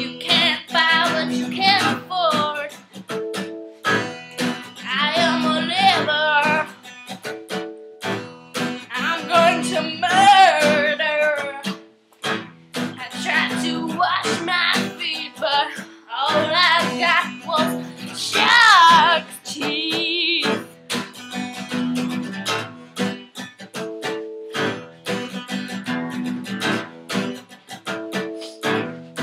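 Acoustic guitar strummed in a repeating chord pattern while a woman sings in short phrases, with a louder, higher sung line a little past halfway.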